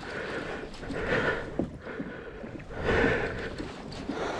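A person breathing hard and audibly, with a loud breath about every two seconds.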